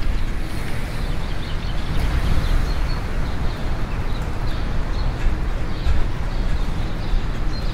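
Outdoor park ambience: a steady rumble of wind on the microphone, with small birds chirping faintly now and then.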